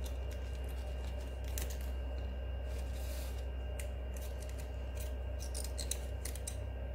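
Small scissors snipping the spines off a golden barrel cactus (Echinocactus grusonii): several sharp snips at uneven intervals, over a steady low hum.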